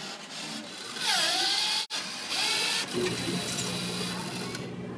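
Coin-operated souvenir penny press machine running: loud mechanical whirring, then a steady motor hum from about three seconds in.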